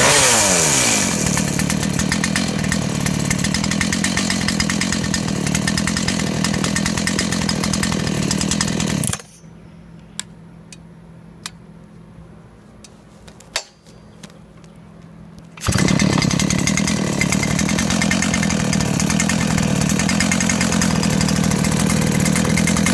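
Brand-new Dolmar PS-7910 two-stroke chainsaw dropping from a rev to idle about a second in, then idling steadily. The engine sound cuts off abruptly about nine seconds in, leaving a quiet stretch with a few clicks. Steady idling comes back abruptly about six seconds later.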